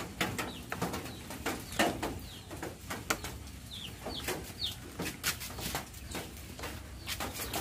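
Scattered small plastic clicks and taps as the stock switch is pushed out of a motor scooter's plastic handlebar switch housing. A few short, high bird chirps sound in the background.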